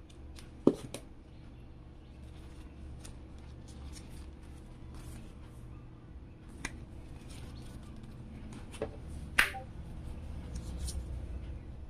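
Paper and card being handled over an open cardboard box: the booklet and sticker sheets rustle and slide, with a few sharp taps and snaps. The loudest is under a second in, and two more come close together near the end.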